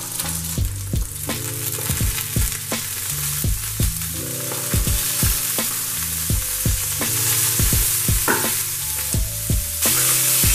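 Mangrove snapper fillets frying in butter in a hot pan, sizzling and spitting steadily.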